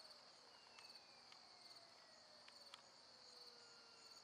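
Near silence with crickets chirping faintly and steadily, and a faint whine sliding slowly down in pitch from the small electric motor of a distant RC airplane in flight.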